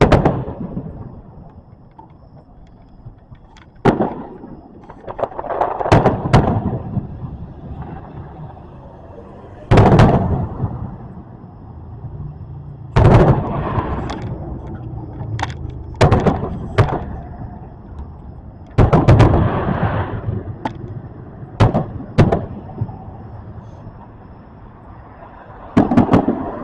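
Fireworks display: aerial shells bursting with sharp, loud booms every few seconds, irregularly spaced, each trailing off in a rolling echo.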